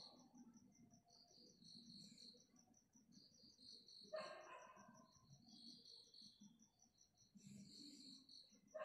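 Near silence with a cricket chirping steadily in the background in rapid, even high pulses. One brief, louder call comes about four seconds in.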